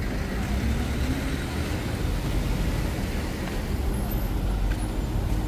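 Steady road-traffic noise, a continuous low rumble, with one vehicle's engine briefly rising in pitch about half a second in.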